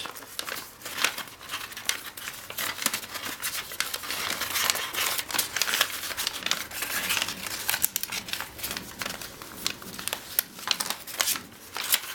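Sheet of origami paper being folded and pressed flat by hand: rapid crinkling and crackling as the creases are flattened.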